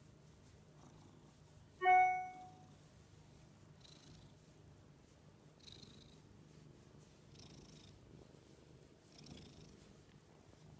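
Domestic cat purring softly and steadily while being stroked under the chin. About two seconds in, a single bright musical note rings out and fades within half a second, the loudest sound here.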